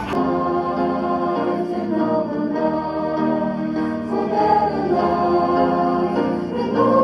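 A group of people singing together with musical accompaniment, a steady sung melody throughout.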